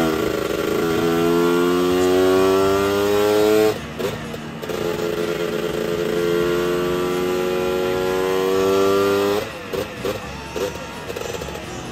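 Two-stroke Lambretta scooter engine run hard on a rolling-road dyno, its pitch climbing steadily under load. It drops about four seconds in, climbs again, and about nine and a half seconds in falls away to an uneven, blipping idle.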